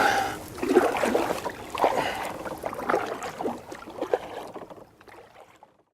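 Kayak on the water as it gets under way: irregular paddle splashes and water sloshing, with a few light knocks on the hull, fading out near the end.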